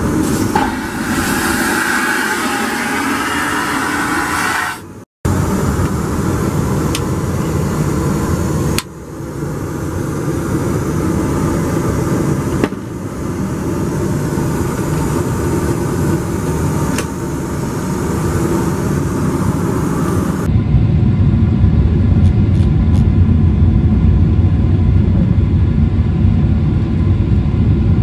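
Boeing 777-300ER cabin noise. In the first few seconds there is a loud whooshing rush that fits the lavatory's vacuum toilet flushing, then steady jet cabin noise. About two-thirds of the way in, a louder, deeper engine rumble takes over.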